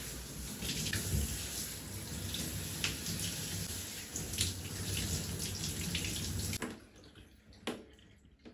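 Handheld shower spray running over a bare foot and splashing into a bathtub, steady until it cuts off suddenly about two-thirds of the way in. After that come faint dripping and a single light knock.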